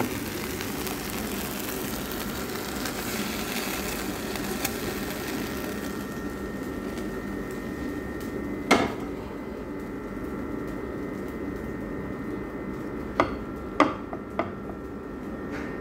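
Seared chicken strips sizzling in a frying pan for the first several seconds, then quieter. About halfway through comes a single sharp knock, and near the end a few clicks of a wooden spatula against a plate as the chicken is moved.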